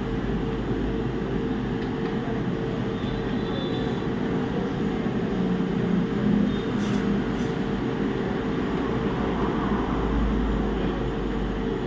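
Steady mechanical hum and whir with a constant low tone, broken by a few faint clicks.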